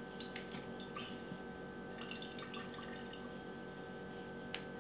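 Salsa liquid dripping and trickling through a mesh strainer in a canning funnel into a glass jar, with scattered light clinks of a utensil against the strainer and jar.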